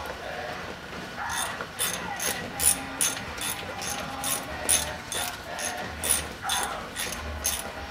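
Socket ratchet wrench clicking steadily, about two to three clicks a second, as it turns the 9/16-inch bolts that hold the spindle and brake backing plate on a Dana 44 steering knuckle.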